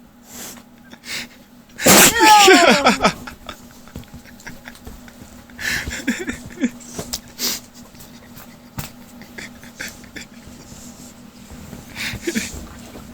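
Pit bull sneezing: one loud sneeze about two seconds in, with a falling pitch, then a few shorter, quieter sneezes or snorts later on.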